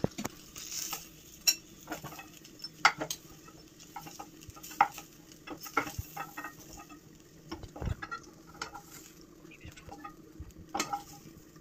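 A metal utensil scraping and clicking irregularly against a nonstick frying pan as pieces of fried marinated chicken are turned and lifted out, with a light sizzle of the frying chicken under it.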